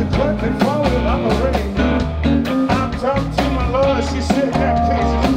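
A band playing upbeat blues-rock with a steady drumbeat and sung vocals.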